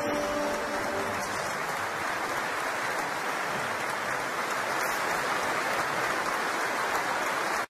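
An audience applauding steadily, with the song's last held notes fading out in the first second. The applause cuts off suddenly at the end.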